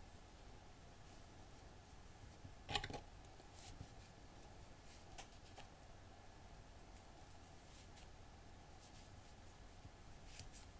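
Faint handling noises of stuffing being pushed into a crocheted amigurumi leg with a thin plastic stick. Mostly quiet, with soft rustles and a few light clicks, the sharpest about three seconds in.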